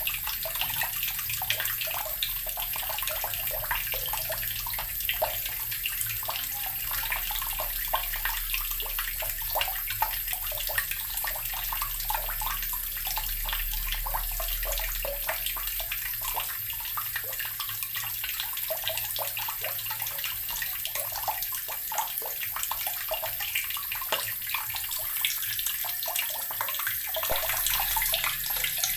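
Water tap running steadily, its stream splashing into a basin with a dense, even spatter.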